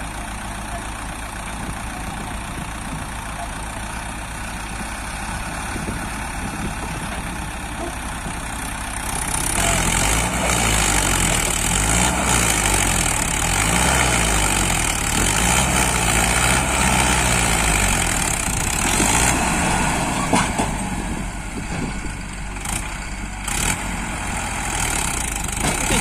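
Diesel engines of a Mahindra Arjun 555 DI tractor and a JCB 3DX backhoe, running steadily at first. About nine seconds in they rev up hard, louder, with the pitch rising and falling for about ten seconds, as the stuck tractor and loaded trolley are driven and pushed out of mud. Near the end they ease back.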